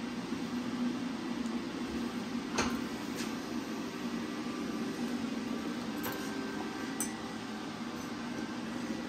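Steady low hum from a fan or machine running in the shop, with a few light metallic clicks and taps as small metal parts are handled at a bench vise; the sharpest click comes about two and a half seconds in.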